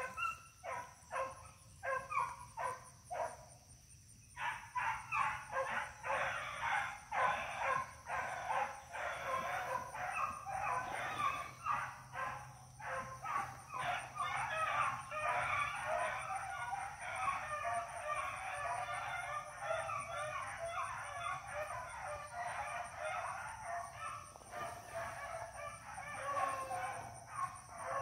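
A pack of beagles baying on a rabbit's trail. A few scattered yelps come at first, then from about four seconds in many dogs give voice together in a dense, continuous chorus of short, choppy barks.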